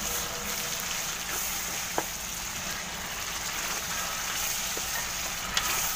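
Ground pork and onions sizzling steadily in hot oil in a wok as they are stirred with a wooden spatula, which clicks against the pan twice.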